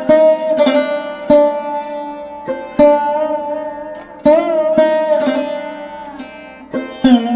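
Instrumental background music: a plucked string instrument playing slow single notes, several of them bent up and down in pitch, each ringing on and fading before the next pluck.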